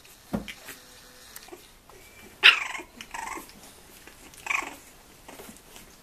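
Bulldog puppies play-fighting, giving short high-pitched yelps and squeals with little growls; the loudest yelp comes about two and a half seconds in, and another about four and a half seconds in. A low bump just after the start.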